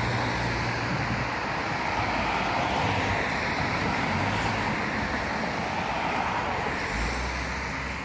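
Steady outdoor background noise, with low rumbles of wind on the microphone in the first second and again about seven seconds in.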